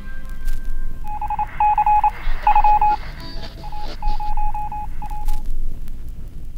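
Electronic beeping: a single tone switched on and off in quick runs of short beeps, starting about a second in and stopping after about five seconds. Under it are a steady low rumble and scattered clicks.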